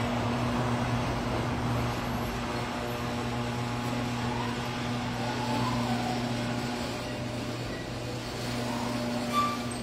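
A steady mechanical hum with a low drone, like a motor or engine running nearby. There is a brief sharper sound near the end.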